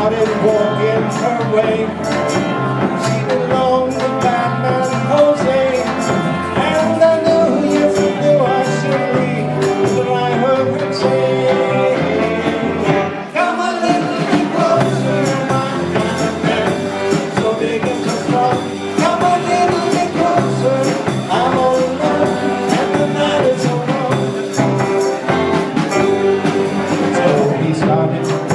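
Live rock and roll band playing a song with a steady beat and a moving bass line, a singer's voice above it; the sound dips briefly about halfway through.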